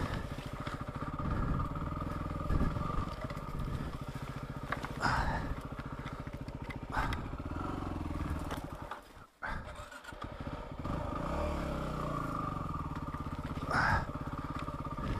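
Yamaha WR250R's single-cylinder engine running at low revs as the dirt bike picks its way through thick brush, the revs rising and falling with short bursts of throttle. The engine sound drops away briefly about nine seconds in, then comes back.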